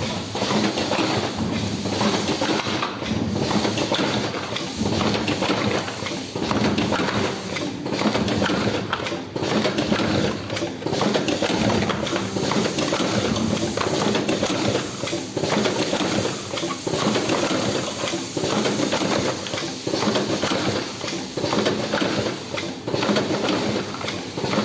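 Vertical cartoning machine running, a continuous mechanical clatter full of many small irregular knocks and clicks.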